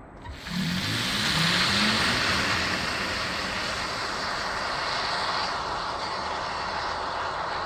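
A Volkswagen ID.7 electric car driving, with steady road and wind noise that starts abruptly a moment in. A brief low wavering tone comes near the start.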